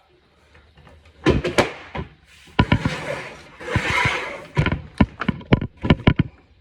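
Handling noise from an opened-up accordion being worked on: a series of knocks and clicks, with a rustling scrape about three to four seconds in, then more quick clicks near the end.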